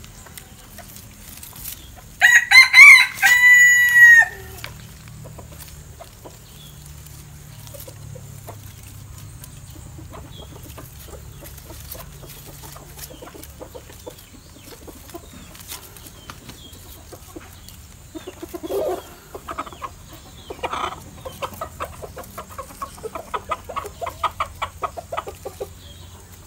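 A rooster crows once, about two seconds in: a loud call of about two seconds that drops in pitch at its end. Near the end, a run of short, quick clucks from chickens.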